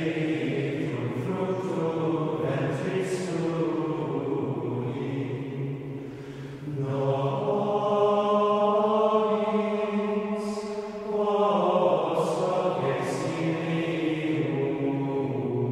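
Slow background music of long held notes, with the chord shifting about seven seconds in and again about eleven and a half seconds in.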